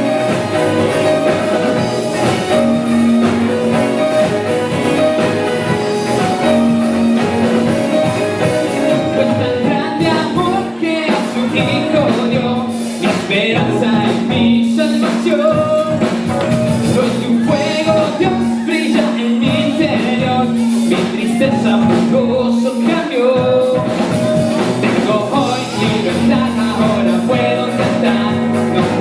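Rock-style song with a singing voice over a full band, loud and continuous, with a held low note underneath.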